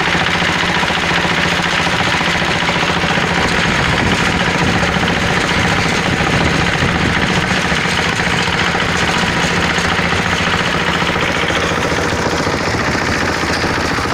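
Diesel engine running steadily with a fast, even knocking beat; its exhaust heats a plastic-drying machine.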